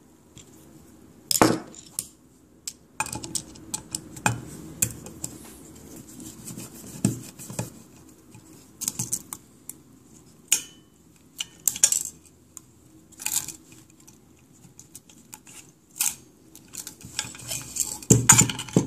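Small metallic clicks and clinks of a screwdriver working screws out of an opened hard drive's metal chassis, with irregular handling knocks. A louder clatter just before the end, as the drive is turned over.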